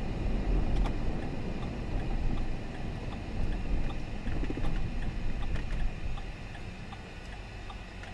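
Road noise of a moving car heard from inside the cabin: a low, steady rumble of tyres and engine that grows quieter as the car slows.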